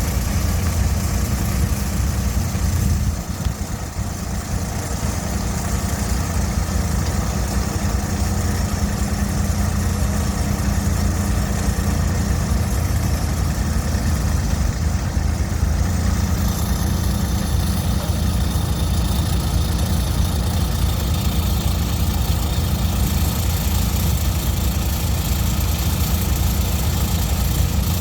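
Engine of a 2016 Terramite T7 compact loader/backhoe running steadily at idle, with a brief drop in level about three seconds in.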